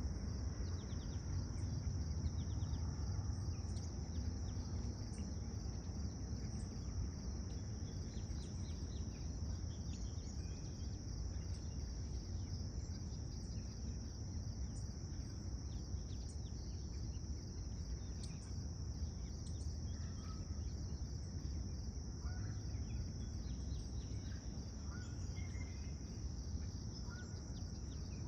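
Steady, continuous high-pitched trill of an insect chorus over a low rumble of background noise, with a few faint short bird chirps near the end.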